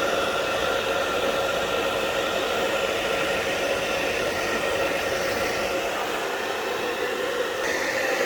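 Hair dryer blowing steadily, its motor adding a faint whine over the rush of air. Its tone changes slightly near the end.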